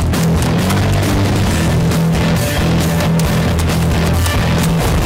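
Loud background music with guitar and a steady beat.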